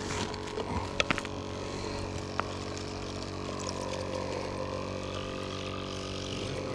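A steady mechanical hum, even and unchanging, runs throughout. In about the first second it is joined by a few sharp clicks and knocks as a plastic bait bucket lid is handled.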